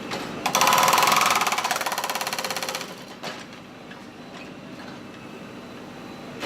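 Hydraulic hammer attachment on a JCB backhoe loader hammering rapidly for about two seconds, then stopping, leaving the machine's engine running more quietly.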